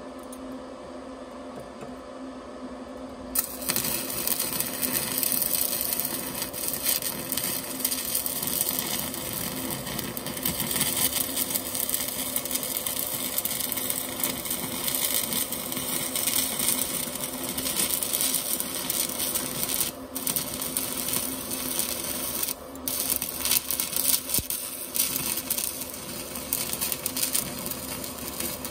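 Sefaspe 120 A inverter stick welder arc welding: the arc strikes about three seconds in and then crackles and sizzles steadily, with two brief breaks later on. A steady low hum sits underneath.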